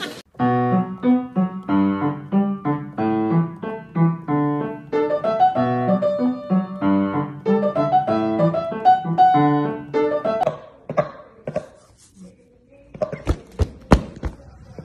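Piano music, notes played in an even, steady rhythm, ending about ten seconds in. It is followed by a few sharp clicks and taps near the end.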